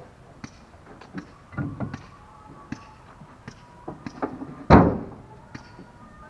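Natural stone blocks being loaded into a truck bed: scattered sharp knocks of stone on stone and on the truck, with one heavy thud about four and a half seconds in.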